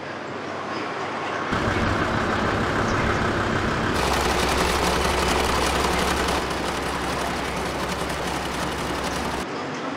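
Garment factory ambience: a steady low machine hum with the running noise of industrial sewing machines. It fades in, grows louder about a second and a half in, and shifts in tone about four seconds in and again near the end.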